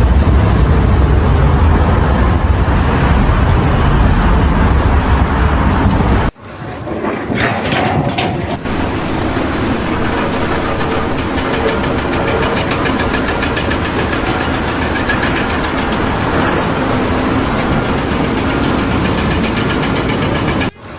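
A loud engine runs steadily for the first six seconds, heavy in the low end. It is cut off abruptly, and a different engine then runs steadily with a fast, even pulse until near the end.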